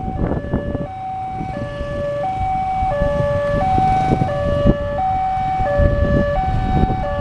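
Railway level-crossing warning alarm sounding continuously: an electronic two-tone signal that alternates between a higher and a lower note about every two-thirds of a second, warning that a train is approaching and the barriers are down.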